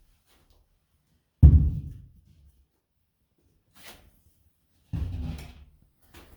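Heavy thumps and knocks of a drywall sheet and 2x4 boards being handled and set in place: a loud thump about one and a half seconds in, a faint click near four seconds, then a second thump with a short scrape around five seconds.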